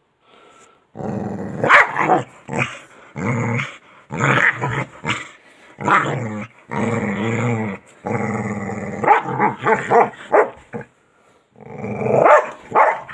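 A dog growling in a string of long, drawn-out growls separated by short pauses, with choppier, shorter growls in the last few seconds.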